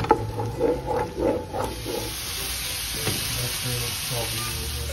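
A wooden spatula stirring diced red pepper in a steel pan, with short scraping taps, then a steady frying sizzle from about a second and a half in as salmon fillets cook in a nonstick pan.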